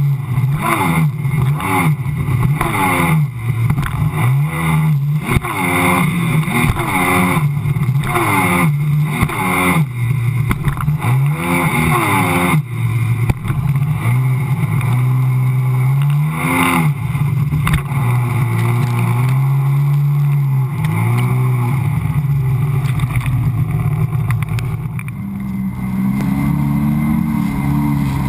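Sea-Doo personal watercraft engine running at speed, its note rising and falling again and again as the throttle is worked over the chop, with rushing spray and water slapping the hull. In the last few seconds the engine holds a steadier note.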